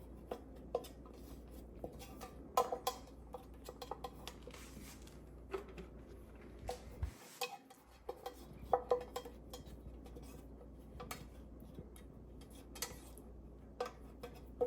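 Scattered light clinks and knocks of kitchen utensils and dishes being handled during baking prep, fairly faint, over a low steady hum.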